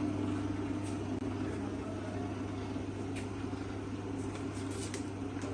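Continuous band sealer running idle, a steady electric motor hum with a few faint light clicks.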